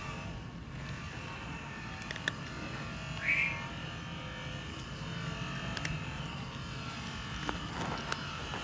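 A cat crunching dry kibble, a few faint sharp crunches over a steady low hum, with one brief high chirp about three seconds in.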